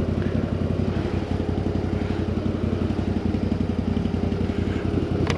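CFMoto CForce 1000 ATV's V-twin engine running steadily at low revs as the quad creeps over rough, muddy ground, with a brief sharp click near the end.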